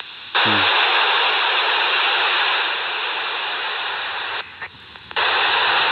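FM receiver hiss from a Polmar DB-4 handheld transceiver's speaker on the ISS repeater downlink, with no voice on the channel. The squelch opens with a brief low falling tone, the hiss runs for about four seconds, drops out for under a second, then comes back near the end.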